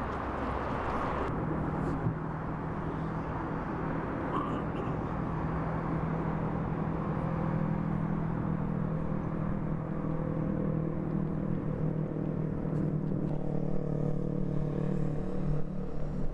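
Engine of tree-removal machinery running steadily, a low even hum that starts about a second in and holds.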